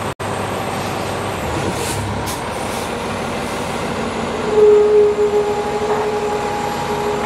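Emergency vehicle traffic: steady engine and road noise, with a steady high tone starting about four and a half seconds in and pulsing a few times.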